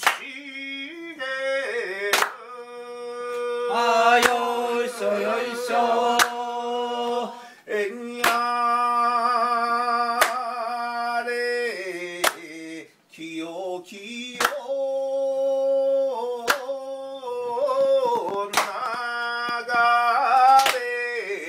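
Unaccompanied singing in long held, wavering notes, with a sharp hand clap about every two seconds keeping time.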